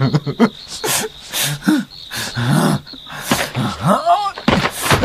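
A young man's voice sobbing and gasping in short broken cries, building to a rising, wavering wail near the end.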